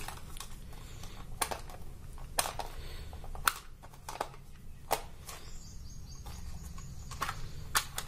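Scattered sharp clicks and taps of hard plastic, about seven in all, as a plastic remote-control toy quad is handled and gripped in the hands. A low steady hum runs underneath.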